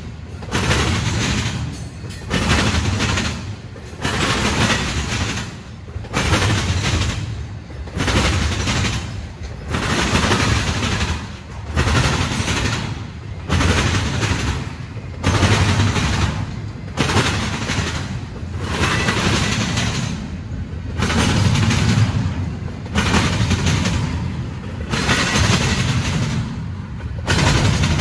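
Norfolk Southern intermodal freight cars rolling past at close range, their wheels clattering and banging in loud bursts about every two seconds as each set of trucks goes by.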